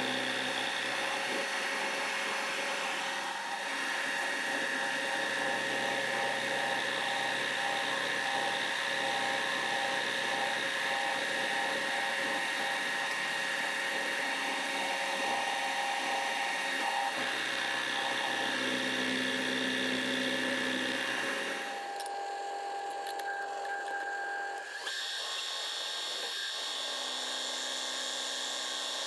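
Milling machine spindle running as an end mill cuts hex flats into a bolt head under flood coolant: a steady whine over a constant cutting hiss. The tone changes abruptly about three quarters of the way through.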